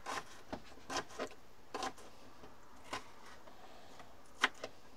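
Kitchen knife tapping and scraping on an onion against a cutting board in about eight light, irregular strokes. The blade is held upside down, so the blunt back fails to cut.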